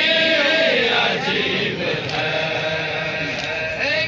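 Men chanting a noha, the Muharram lament, together in long, held melodic lines that bend in pitch.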